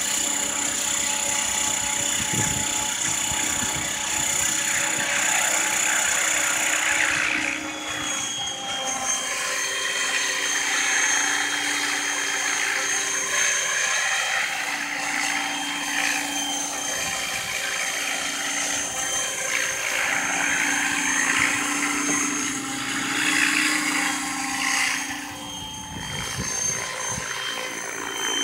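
Electric radio-controlled scale helicopter running: a high motor whine with the whir of the main and tail rotors, steady throughout as it lifts off and hovers low. The whine steps down in pitch about seven seconds in.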